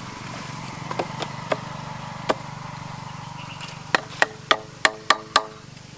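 A hammer knocking a PVC pipe fitting onto its pipe. A few scattered light knocks come first, then from about four seconds in a steady run of ringing strikes, about three a second. A steady low hum runs underneath.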